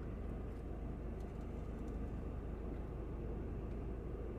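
Steady low background rumble with a few faint, soft clicks.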